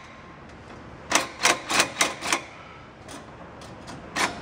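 A run of five sharp clicks about a third of a second apart, starting about a second in, then a few fainter ones near the end: a hand tool at work on a seized exhaust clamp.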